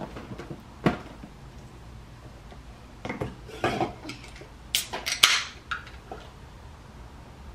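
Cardboard boxes and items knocking against the countertop as groceries are set down, then an aluminium can of sparkling water is cracked open about five seconds in with a few sharp clicks and a short fizz.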